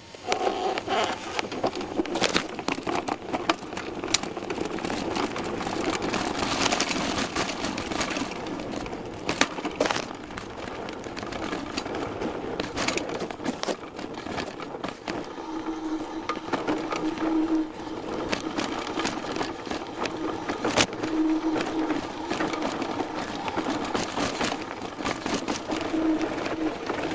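Downhill mountain bike riding down a rough dirt trail, heard from a camera mounted on the bike: continuous rattling and clatter of the frame and fork with tyre noise, broken by sharp knocks over bumps.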